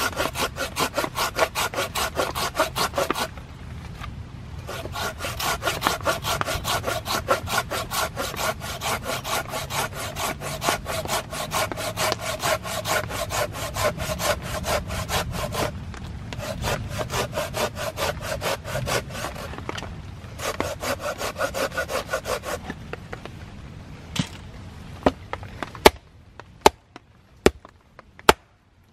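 Hand pruning saw with a curved blade cutting through a split log for firewood: fast, even back-and-forth strokes with a few short pauses, stopping near the end. A few sharp wooden knocks follow.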